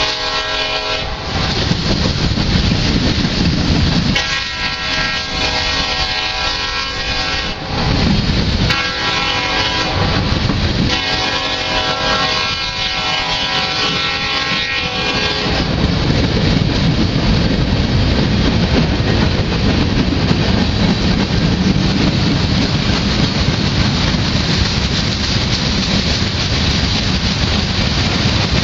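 Freight train rolling slowly past close by, while the lead locomotive's horn sounds in the distance: the end of one blast, then a long, a short and a long blast, the grade-crossing signal. For the second half only the freight cars' steady rolling rumble is heard.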